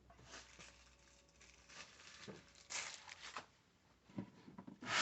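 Faint rustling and light handling knocks, as of hands moving cables and objects around the server, with a short louder rustle starting near the end.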